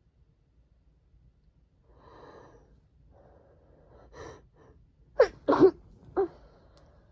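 A person's sneezing fit: a few catching, gasping breaths, then two sharp sneezes in quick succession about five seconds in and a smaller third one just after.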